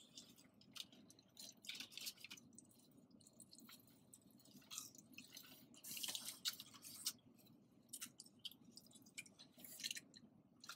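Faint close-miked chewing and wet mouth sounds of someone eating, coming in short crackly bursts, the longest about six seconds in, over a low steady hum.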